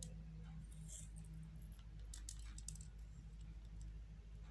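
Faint, light ticks and clicks of hands handling buns on a metal baking tray, several in quick succession about two to three seconds in, over a steady low hum.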